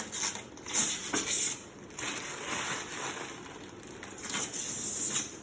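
Packaging being handled: plastic wrapping rustling and crinkling in short bursts, then in a longer stretch that stops near the end.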